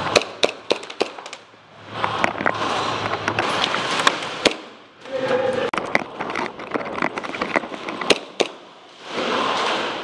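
Airsoft guns firing: a string of sharp, irregular shots and cracks, some in quick runs, with short lulls between them.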